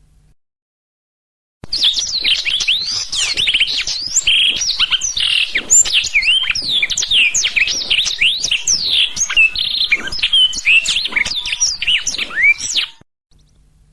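Black-throated canary (blackthroat) singing a long, fast, varied song of quick whistled notes, slides and trills, starting about a second and a half in and cutting off abruptly near the end.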